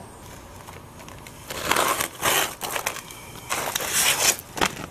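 Asphalt roof shingle scraping and rustling as it is handled and slid into place over metal step flashing and the shingles below. There are two stretches of scraping, starting about a second and a half in and again around three and a half seconds in, and a short knock near the end.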